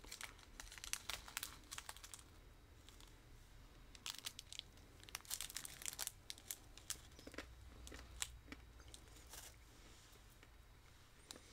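Faint, scattered crinkling and crackling of a small candy package being handled, made up of irregular light clicks.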